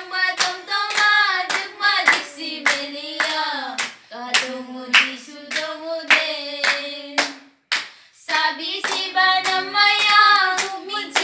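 Young girls singing a song together in unison while clapping along about twice a second. Singing and clapping break off for a moment about seven seconds in, then start again.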